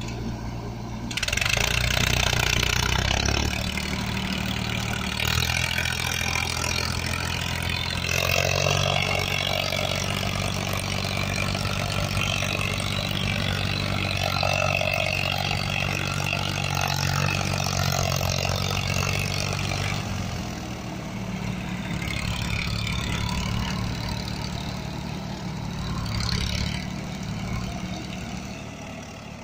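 Farmtrac 45 tractor's three-cylinder diesel engine working under load as it pulls a trolley heaped with soil through mud. It picks up about a second in and runs steadily, eases off about two-thirds of the way through, then fades as it moves away near the end. The engine pulls the load without labouring.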